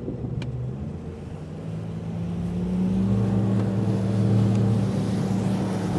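Bass boat's outboard motor accelerating, its pitch climbing over the first few seconds, then running steadily at speed over a rush of wind and water.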